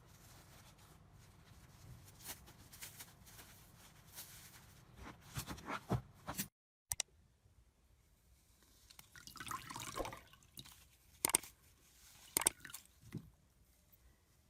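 Slime being handled and squeezed: sticky clicks, crackles and squishes come in irregular runs. A short dead-silent cut about six and a half seconds in separates two clips.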